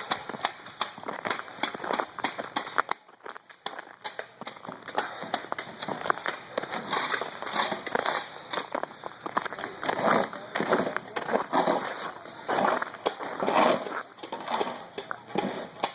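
Footsteps crunching irregularly on ice-covered ground, with a person's heavy breathing swelling in and out.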